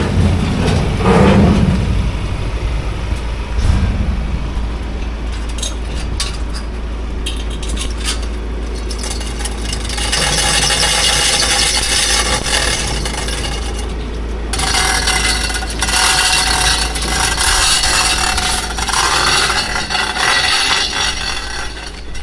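Engine running with a steady low rumble, with scattered rattles and clicks in the first half. From about ten seconds in a loud rushing hiss joins, breaking off briefly near fourteen seconds.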